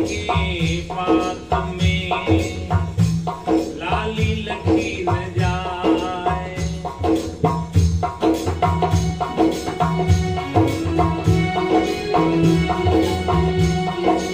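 Devotional folk music: a khanjari, a small hand-struck frame drum with jingles, played in a quick steady rhythm with its jingles shimmering. A sustained low drone runs underneath.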